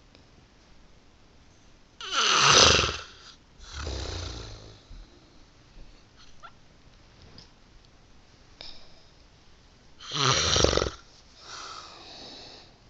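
Snoring: two loud snores about eight seconds apart, each about a second long and followed by a softer, longer breath out.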